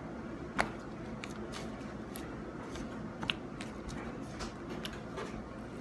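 Homemade glue-and-activator slime being stretched and squished by hand: scattered small sticky clicks and pops, with a sharper click about half a second in and another a little past three seconds.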